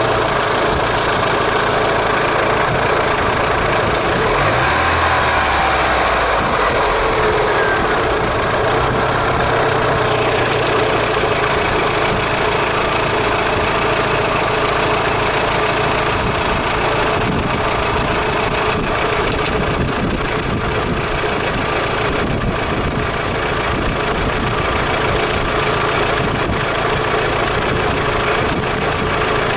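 Daewoo Lanos 1.6 16V four-cylinder engine idling with a knock that appeared after a head gasket replacement and cylinder head resurfacing. The owner wonders whether the mechanic botched something or a timing-belt roller has failed.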